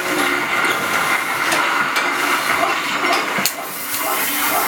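A steady hiss, with a few sharp knocks on metal from a person in firefighter's gear crawling through a steel-mesh cage tunnel. The loudest knock comes about three and a half seconds in.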